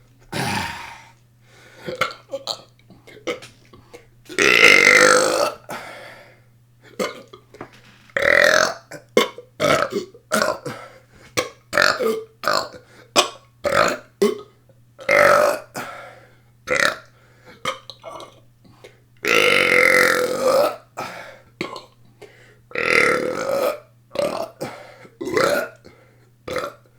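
A person belching on purpose over and over: a string of short burps, with two long, drawn-out belches about four and a half seconds in and again about twenty seconds in.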